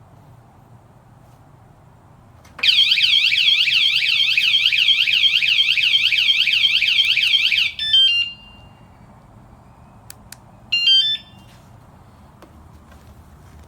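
Small wireless motorcycle vibration alarm sounding its siren: a loud, fast warble sweeping up and down about four times a second for about five seconds, then cut off into a short stepped chirp. Two faint clicks follow, then another brief chirp from the alarm.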